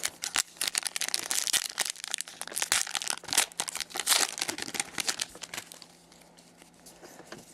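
Hockey card pack wrapper being torn open and crinkled, a dense crackling that dies away about two seconds before the end.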